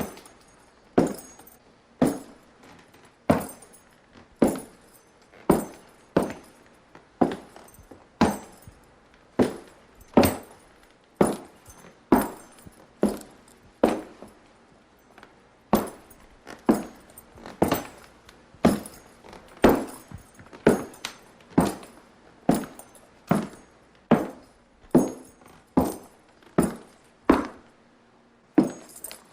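Footsteps walking at an even pace, about one step a second. After a short pause about halfway, they continue faster, around three steps every two seconds.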